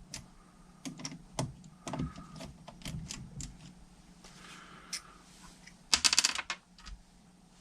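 Small metal carburettor parts being handled on a workbench: scattered clicks and taps, then a short run of rapid clicks about six seconds in.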